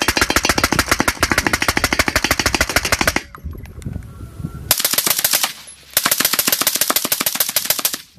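AR-15 designated marksman rifle firing very fast strings of shots, many a second. There are three strings, each cut off abruptly, with a quieter gap about three seconds in and a short one near five and a half seconds.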